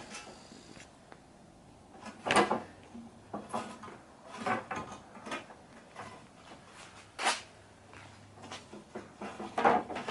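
Scattered clacks and knocks as retractable-screen housing parts are handled and set on a workbench, several irregular knocks a second or so apart.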